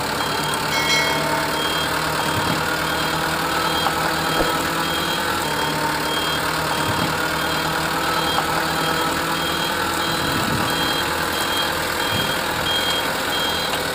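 Truck engine idling steadily, with a short high beep repeating about twice a second.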